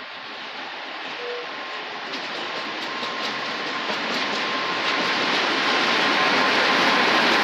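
Electric freight locomotive hauling a train of open freight wagons, approaching and passing close by: a steady rail rumble growing louder, with a few wheel clicks over rail joints and a faint steady whine.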